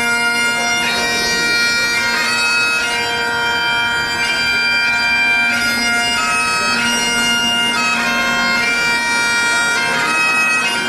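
Bagpipes playing a tune: the chanter's melody moves from note to note over the steady hum of the drones.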